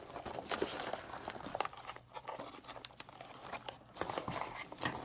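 Packaging crinkling and rustling as items are rummaged out of a shipping box, in irregular bursts with a short lull in the middle.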